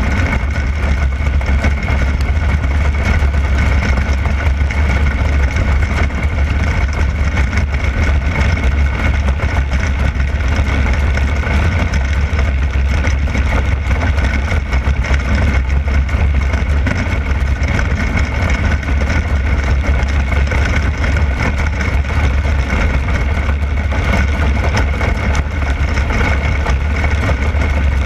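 360 sprint car's 360-cubic-inch V8 running at race pace on a dirt oval, heard from on board the car, loud and steady.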